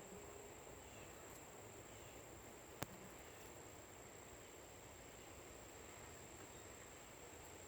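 Near silence: a faint background hiss with a steady high-pitched whine throughout and a single sharp click a little under three seconds in.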